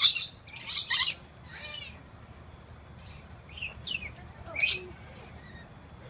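Rainbow lorikeets giving short, high-pitched calls: a cluster in the first second or two, then a few more about three and a half to five seconds in.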